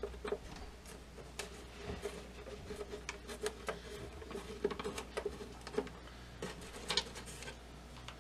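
Screwdriver working small screws out of a Zenith B600 Trans-Oceanic radio's front panel: light, scattered clicks and scratches.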